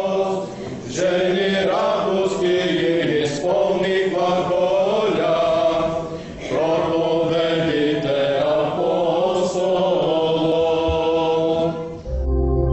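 Group of voices chanting a melody over a steady held low drone note. About twelve seconds in the chant cuts off and gives way to soft, sustained ambient music.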